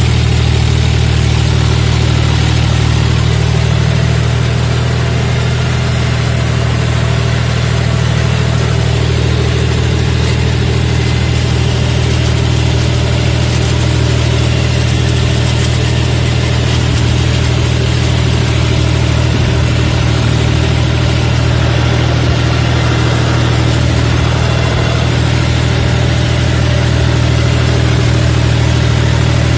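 John Deere tractor's diesel engine running steadily, heard close up from the driver's seat as the tractor works across a tilled field.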